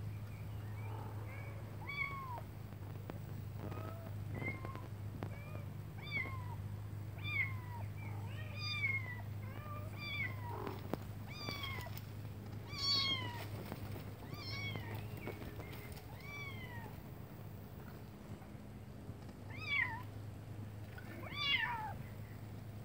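Kitten stuck partway up a tree trunk, meowing over and over: short high calls about once a second, then two louder, sharper calls falling in pitch near the end.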